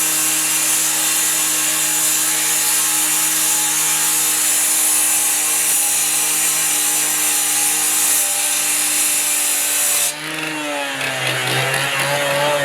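A power tool running steadily at a constant pitch, with a loud hiss over a low hum, sawing or cutting; it stops suddenly about ten seconds in, and a voice follows near the end.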